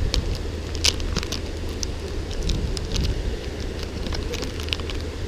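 Wind rumbling on the microphone over a steady wash of water, with scattered light clicks and ticks throughout.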